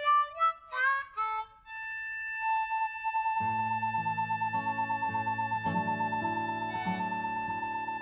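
Music: a few quick short notes, then a single held high note pulsing with a fast tremolo, joined about three and a half seconds in by sustained low chords.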